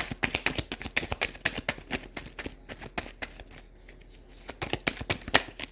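A tarot deck being shuffled by hand: a rapid run of papery card clicks and flicks that thins out past the middle, with a few sharper snaps near the end.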